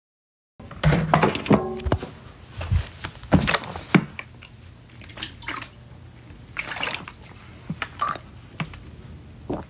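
A plastic water bottle being handled and drunk from, close to the microphone: a burst of knocks and crinkles in the first couple of seconds, then scattered clicks and short liquid sounds.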